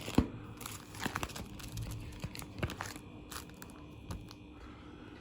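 Paper rustling and crinkling in short, uneven bursts as the pages of a car's service records are handled and leafed through.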